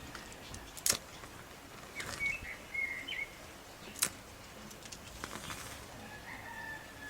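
A few sharp clicks, the loudest about a second in and again about four seconds in, while a bird chirps in short phrases in the background.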